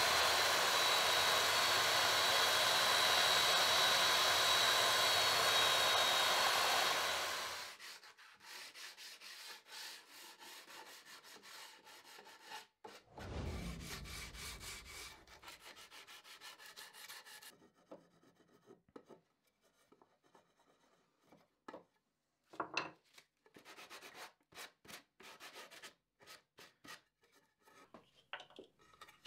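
Electric belt sander running steadily with an oak frame held against its belt, stopping about seven seconds in. It is followed by quieter rubbing strokes of hand sanding on the oak, and a few light taps and clicks near the end.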